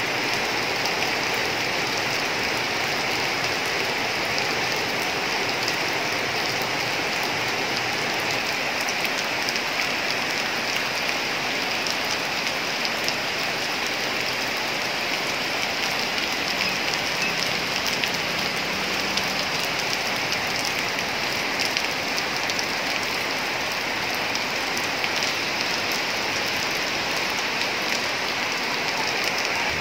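Steady rain falling on corrugated metal roofs, a dense, even patter that holds at the same level throughout.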